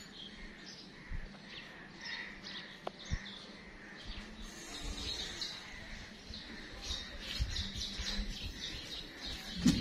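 Small birds chirping in short calls, with a few low thumps near the end.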